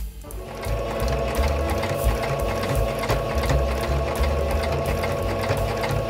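Electric domestic sewing machine running steadily as it stitches a seam through fabric, a rapid even needle ticking over a steady motor hum. It starts just after the beginning.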